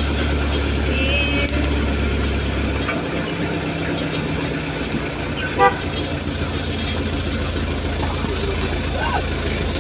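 A vehicle running steadily along a road, with one short horn toot a little past halfway.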